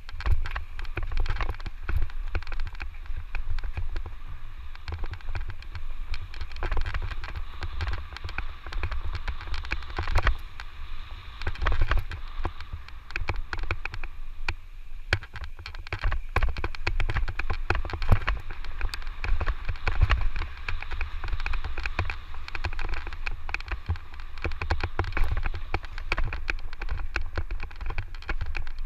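Electric mountain bike rattling and clattering over a rough dirt trail, with dense irregular knocks from the frame and wheels and a constant low rumble of wind on the microphone.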